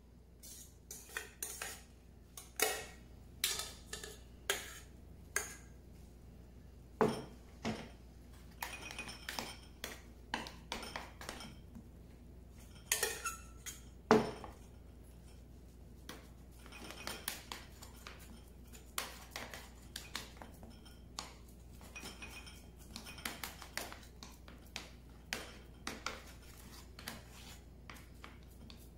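Metal spoon clinking and scraping against a stainless steel mixing bowl and a metal ring mould as a chopped mushroom mixture is spooned in and pressed down. The clinks and scrapes come at an irregular pace, with a few sharper knocks.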